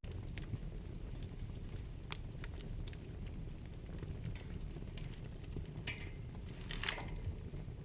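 Wood fire burning in a fireplace: a steady low rumble of flames with scattered sharp crackles and pops, a quick cluster of louder pops near the end.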